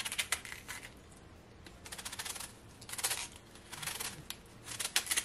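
Kitchen knife slicing thin shreds off a hand-held half cabbage, each stroke a short crisp crunch, about five strokes roughly a second apart.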